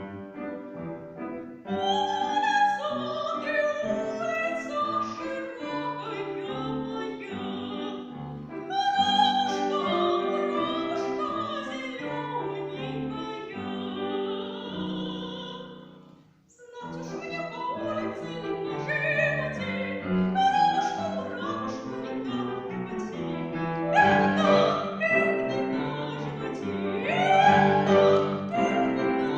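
A female voice singing in classical style with piano accompaniment, holding long notes with vibrato; the music briefly drops away about halfway through before the singing resumes.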